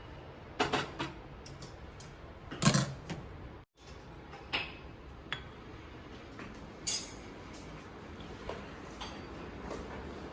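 Crockery and utensils being handled: a handful of short clinks and knocks, the loudest about two and a half seconds in, over a low room hum.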